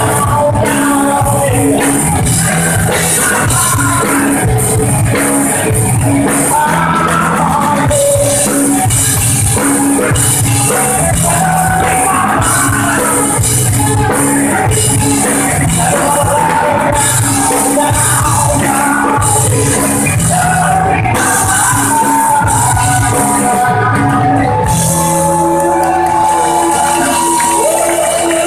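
Live rock band playing loud with electric guitars, bass guitar and drums, with vocals and shouts from the crowd over the top.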